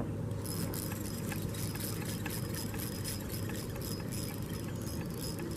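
A hooked bullhead being reeled in: a quick, irregular run of small clicks and splashes starting about half a second in, over a steady low rumble.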